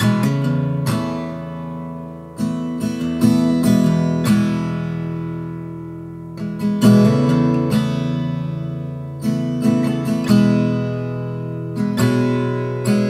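Background music: an acoustic guitar strumming slow chords, each chord struck and left to ring and fade before the next.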